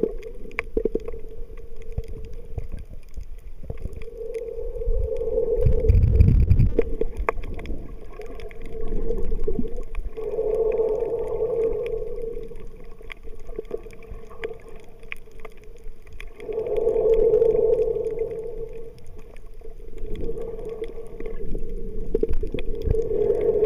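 Underwater recording of a snorkeller breathing through a snorkel: a droning hum swells and fades about every six seconds, with scattered faint clicks and one low thump about six seconds in.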